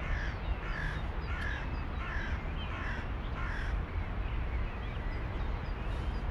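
A crow cawing about six times in quick succession, the calls stopping a little before four seconds in, over a steady low rumble.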